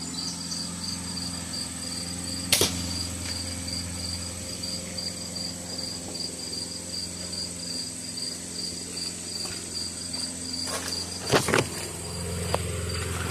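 Killer Instinct Lethal 405 crossbow being fired: a sharp click about two and a half seconds in, then the loud snap of the shot about eleven seconds in. Crickets chirp steadily throughout.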